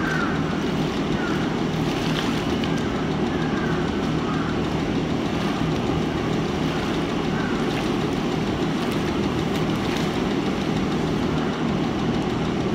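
Steady low mechanical drone, even in level throughout, with faint short high squeaks now and then.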